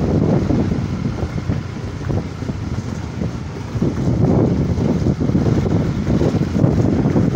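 Wind buffeting the microphone on a moving motorcycle, over the bike's engine and its tyres running on an unpaved gravel road. The rush eases for a couple of seconds and picks up again about four seconds in.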